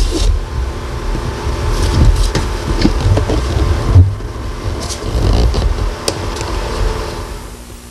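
Camcorder handling noise: an uneven low rumble on the built-in microphone with rustling of bedding and scattered knocks, one stronger thump about four seconds in, fading near the end.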